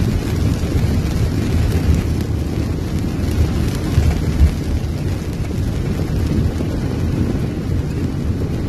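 Muddy floodwater rushing down a street, a loud, steady, low rush of water with a few brief swells.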